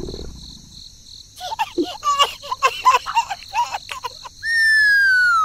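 Cartoon sound effects: a rapid run of short, high squeaky chirps, then near the end a long whistle that slides steadily down in pitch.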